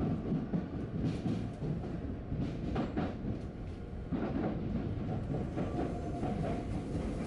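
Tokyu Oimachi Line electric commuter train running on the rails, heard from the front car: a steady rumble with sharp wheel clacks over the rail joints and pointwork. About four seconds in it grows louder as an oncoming train passes close by on the next track.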